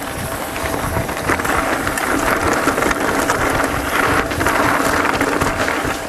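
Mountain bike riding over a loose, rocky trail: knobby tyres crunching on gravel and stones, with the bike rattling over many small bumps and wind buffeting the microphone.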